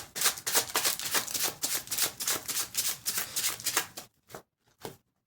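Tarot cards being shuffled by hand: a rapid run of card clicks for about four seconds, then a few single clicks near the end.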